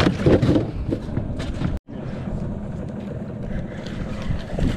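Boat's outboard motor running steadily under wind buffeting the microphone. The sound cuts out for an instant about two seconds in.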